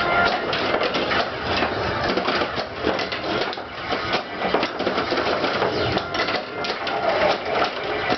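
A 1995 Bally Attack From Mars pinball machine in play: a continuous rapid clatter of flippers, solenoids and the ball striking targets and bumpers, mixed with the game's electronic sound effects.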